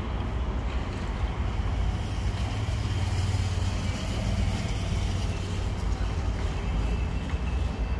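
Steady street traffic rumble, with a car driving past on the road below.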